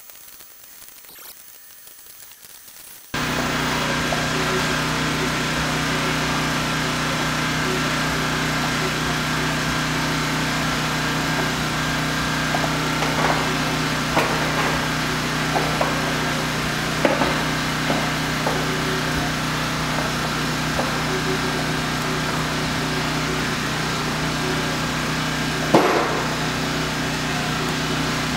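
A motor running steadily, starting abruptly about three seconds in, with a few light knocks over it and one sharper knock near the end.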